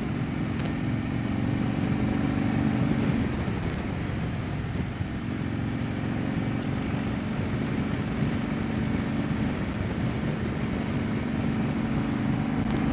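Harley-Davidson Dyna Low Rider's V-twin engine running steadily while riding at cruising speed, with road and wind noise.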